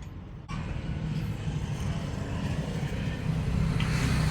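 A motor vehicle's engine running with a low hum that starts about half a second in and grows steadily louder, like a vehicle drawing closer.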